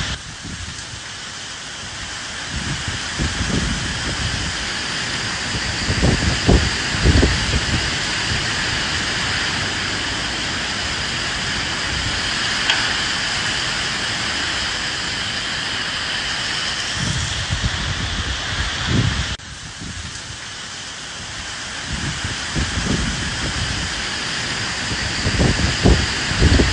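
Steady rain hiss with gusts of wind swelling in low every few seconds. About two-thirds of the way through the sound drops off suddenly for a moment, then builds back.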